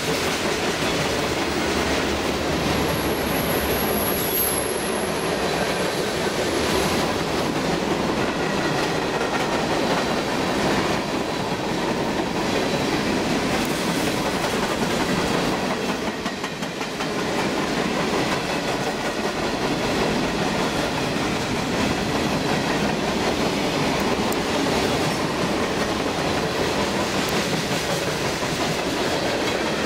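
Freight train cars rolling past close by: a steady rumble and clatter of steel wheels over the rail joints, briefly quieter about sixteen seconds in.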